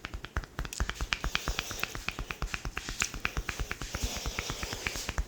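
Rapid, even run of sharp crackling clicks, about eight a second, from an Indian head-massage cracking and tapping technique: the masseur's hands and fingers striking and cracking against the client's skin.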